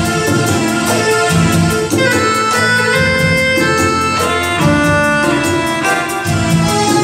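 Live band playing an instrumental interlude of a Hindi film song: a sustained melody with a brass-like tone over a steady tabla and dholak beat.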